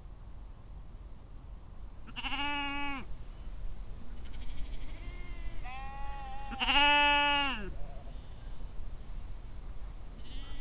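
Sheep bleating: a loud call about two seconds in and a louder one about seven seconds in, with fainter bleats between them.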